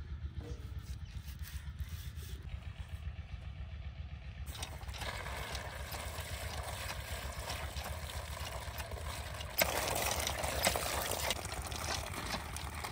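Water from a hand-operated well pump gushing out of the spout and splashing, starting suddenly about a third of the way in. It is loudest for a second or two as it pours over cupped hands.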